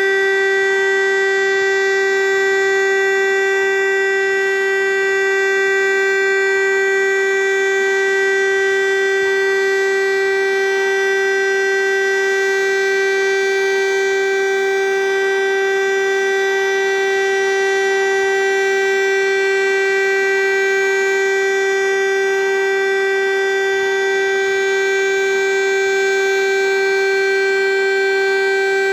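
Civil defence siren sounding a steady, unbroken tone at one fixed pitch during a siren test. This is the continuous tone used in the Czech monthly siren test.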